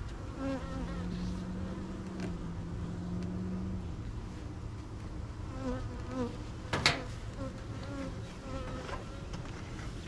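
Honeybees buzzing around an open hive, single bees flying close past with a wavering hum that comes and goes, over a steady low drone in the first few seconds. One sharp knock about seven seconds in.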